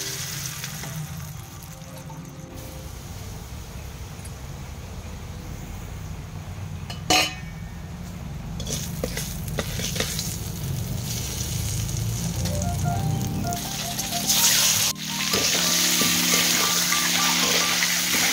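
Hot oil sizzling in a wok with salt and turmeric while a spatula stirs it, with one sharp knock about seven seconds in. Near the end the sizzle jumps louder and stays so as peeled boiled eggs fry in the oil.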